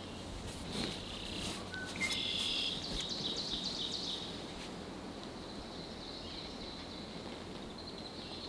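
Field-edge ambience: small birds chirping and whistling, busiest from about two to four seconds in, over a faint steady high insect drone.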